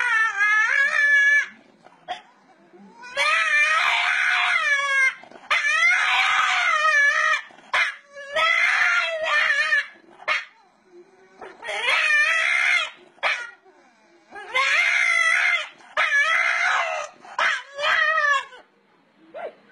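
A dog howling in a series of about seven long calls, each wavering up and down in pitch, with short pauses between them.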